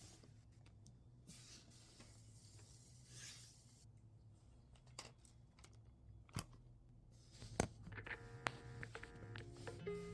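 Quiet room with a faint hum and a few scattered sharp clicks and taps; faint held musical tones come in near the end.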